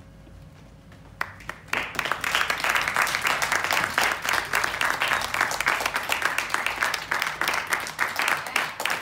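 Small audience applauding: quiet for about the first second, then a first clap and the applause breaks out and keeps going.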